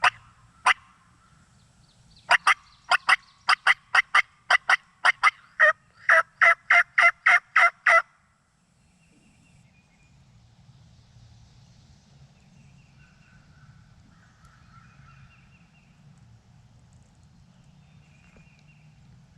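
A hand-operated turkey call run as a string of about twenty sharp yelps, a few spaced notes at first, then a quick, even series of two-tone notes that stops about eight seconds in. Afterwards only a low rush of wind remains, with a few faint bird chirps.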